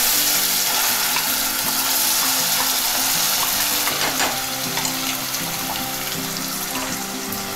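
Wet ground coconut-and-masala paste sizzling loudly in hot oil in a kadhai, right after being poured in. The sizzle eases slightly over the seconds.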